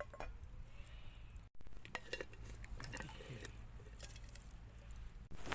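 Camp cookware being handled: scattered light metal clinks and scrapes.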